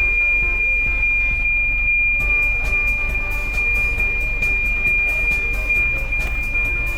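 Background music with a steady beat and a single steady high-pitched tone held throughout.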